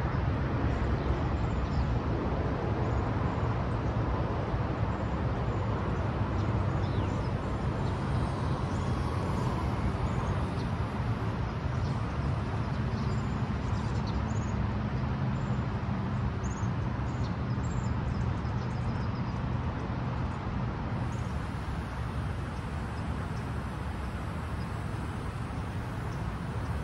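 Steady outdoor background rumble, like distant road traffic, with a few faint short high chirps scattered through it.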